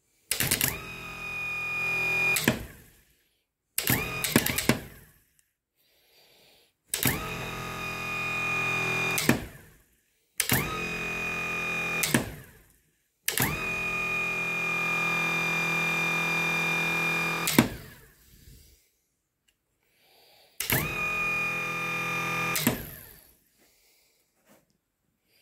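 David Brown 25D tractor's starter motor, cleaned up after being flooded, run on the bench off jumper leads six times. Each run starts with a sharp click as the lead touches, spins at once to a steady high whine, and winds down as the lead is pulled away; the longest run, about halfway through, lasts about four seconds. It spins up freely each time, a sign the cleaned starter works.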